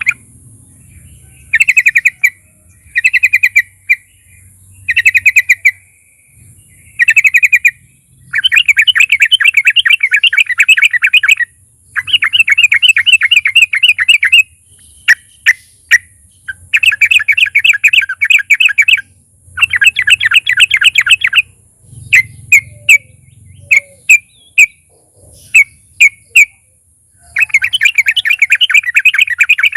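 Yellow-vented bulbul (trucukan) singing loudly: fast, rattling phrases of quickly repeated notes, each one to three seconds long, with short single chirps in between, over a faint steady hiss.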